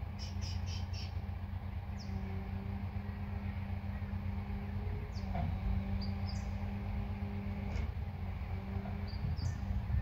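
Engine of a crane truck running steadily as it holds a lifted van, with short high bird chirps over it: a quick run of four at the start, then more scattered through.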